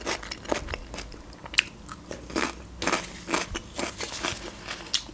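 Close-miked biting and chewing of fresh cucumber: an irregular run of crisp, wet crunches, several a second.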